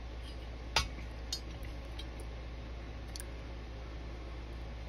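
A few small metal clicks and clinks from handling a Quadrajet carburetor's air horn and a steel pick tool on the bench, the sharpest just under a second in and three fainter ones after, over a steady low hum.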